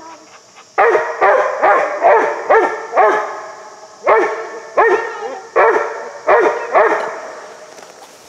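Hound puppy barking treed, about eleven barks in quick runs with short gaps. These are tree barks, given at the base of a tree the dog believes holds game, here a raccoon.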